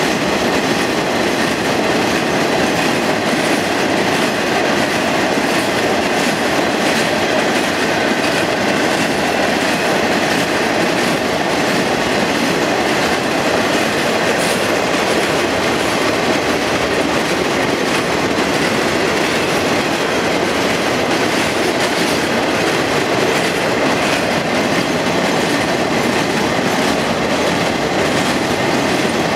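Empty DMIR iron ore hopper cars of a freight train rolling past: a steady rolling rumble, with the clatter of wheels over rail joints.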